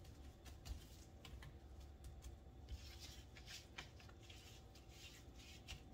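Near silence with faint scattered taps and soft rustles as gloved hands pat and handle seasoned salmon fillets on a metal sheet pan.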